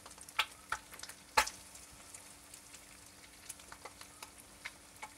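Eggs frying in butter in a copper pan over a wood fire: a soft, steady sizzle with scattered sharp pops and crackles, the loudest about one and a half seconds in.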